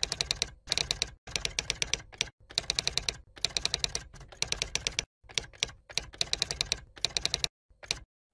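Typing sound effect: runs of rapid keystroke clicks, about a dozen a second, broken by short pauses.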